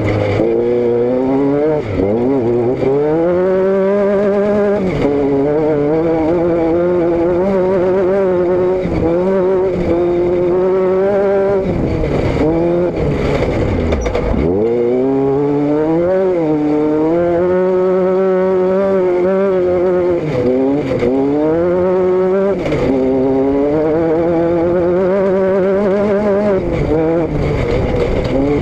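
A motor vehicle's engine running steadily loud under varying load, its pitch climbing and falling again and again with several sudden drops. About halfway through it falls very low, then picks up again.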